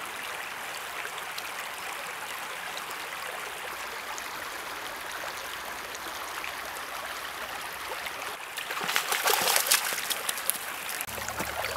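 Shallow stream flowing over stones, a steady babbling rush of water. About nine seconds in it grows louder and splashier for a second or two.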